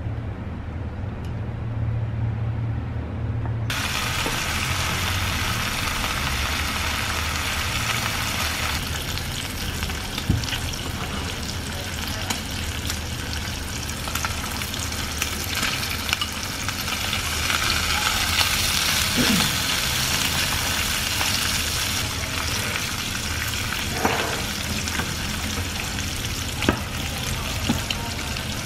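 Bacon and diced Spam sizzling in oil in a nonstick frying pan while being stirred with chopsticks, with a few light taps on the pan near the end. The sizzle starts abruptly a few seconds in, after a low hum.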